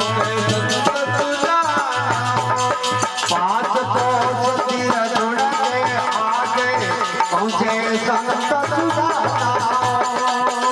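Indian devotional bhajan music: a wavering melody line over steady percussion, with regular strikes and a pulsing low bass.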